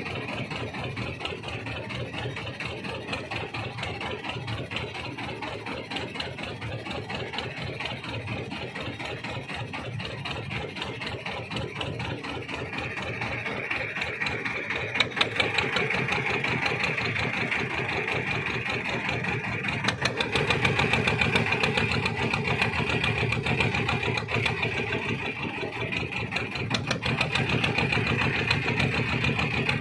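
Fishing boat's engine running steadily, growing louder about halfway through.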